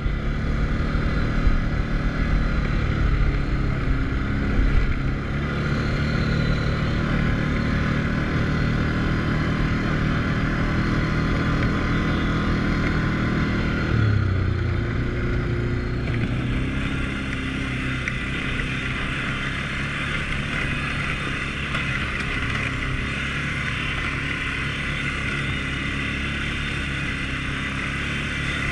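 Can-Am Outlander 450 L ATV's single-cylinder engine running under throttle while riding, with tyre and wind noise. About halfway through the engine note shifts, then settles slightly quieter and steadier.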